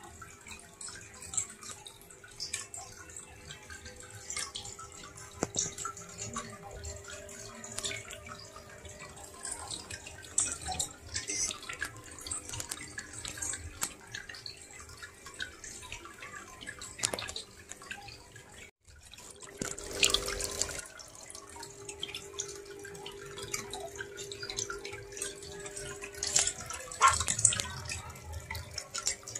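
Water trickling and dripping from a small homemade styrofoam-rock aquarium waterfall: irregular splashes over a faint steady hum. There is a short break about two-thirds through, followed by a louder splash.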